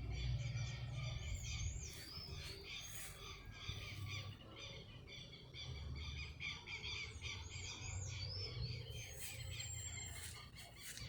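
Small birds chirping and twittering in quick, overlapping series of short notes, with a low rumble coming and going underneath.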